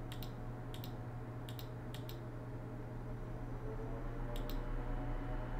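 Computer mouse clicks, each a quick press-and-release double tick: four in the first two seconds and one more about four and a half seconds in, over a steady low hum.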